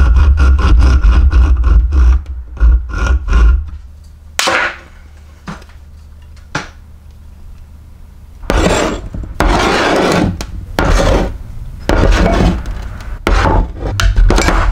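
Hand-tool work on wooden golf clubs and their metal shafts: quick regular rubbing and scraping strokes, about five a second, then a few single knocks, then longer rasping bursts over the last six seconds.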